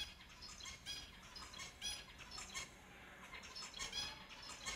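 A group of finches calling: many short chirping calls in quick succession, some overlapping, with louder clusters about every second.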